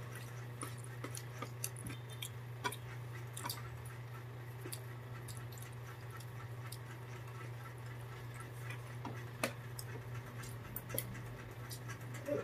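Faint, scattered clicks and taps of a spoon and hands against plastic plates during a meal, over a steady low hum.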